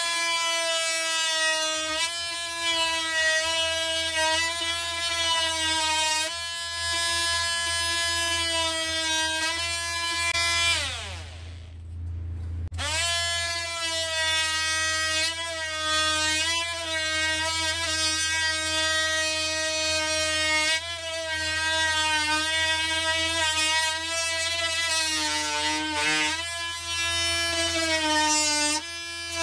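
Parkside PAMFW 20 Li B2 cordless oscillating multi-tool running at top speed while cutting wood: a steady high-pitched whine with small dips in pitch. About 11 seconds in it winds down to a stop, then starts again and winds back up to full speed.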